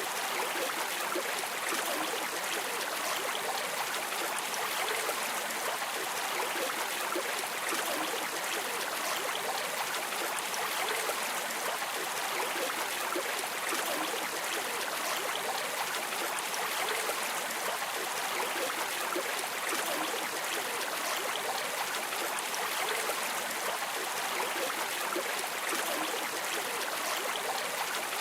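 Flowing river water running steadily, an even rushing with no pauses or changes.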